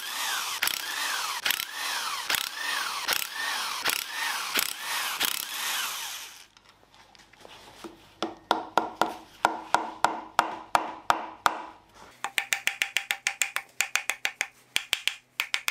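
Hand tools working on the bolts of a rear differential cover. A rhythmic back-and-forth stroke repeats about every half second for roughly six seconds. After a short pause come sharp ratchet clicks, first about four a second, then a fast, even run near the end.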